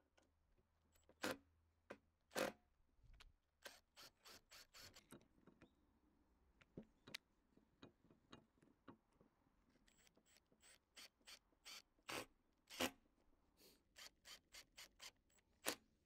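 Faint, scattered sharp clicks and taps of a cordless drill, screws and a brass hinge being handled while the hinge is fitted to a wooden door frame, with no sustained drill run. The clicks come more thickly in the second half, the loudest about a second in, near two and a half seconds, and near the thirteenth second.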